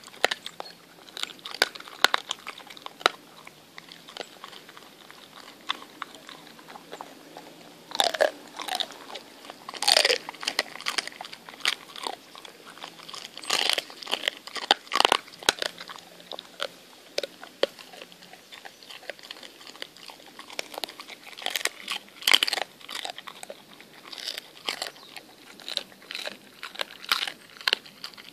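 An Appenzell Mountain Dog x Stabijhoun cross chewing a raw rabbit head close up. Irregular wet chewing and crunching of bone, with louder cracking crunches every few seconds.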